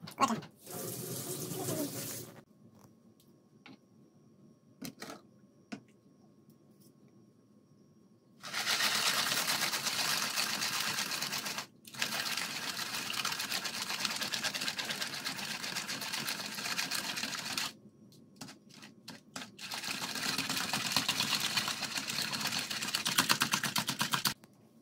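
Hand whisk beating eggs and milk into a batter in a plastic bowl: a fast, steady rattle of strokes against the bowl. It comes in two long bouts, the first from about eight seconds in with a brief break, the second near the end.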